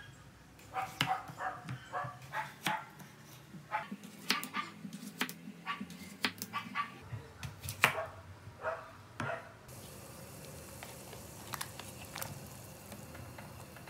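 Kitchen knife slicing a cucumber on a wooden cutting board: a run of crisp, irregular knocks as each slice is cut through onto the board. About ten seconds in it gives way to the steady hiss of a pan of water at the boil, with a few light knocks as dumplings are tipped in.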